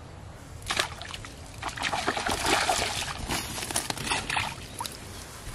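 Water splashing as a hooked snakehead fish is hauled out of a pond: one sharp splash about a second in, then about three seconds of dense, continuous splashing and thrashing.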